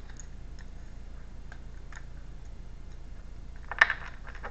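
A deck of tarot cards being handled and shuffled in the hands: a few faint card clicks, then a short, sharp flurry of card snaps about four seconds in.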